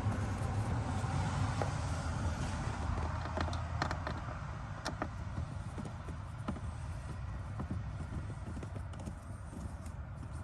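Scattered light clicks and taps of hand tools and plastic dashboard trim being handled while screws are taken out, over a low hum that fades away about four seconds in.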